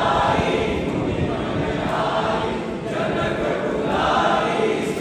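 A group of voices singing an aarti hymn together in unison, in short repeated phrases.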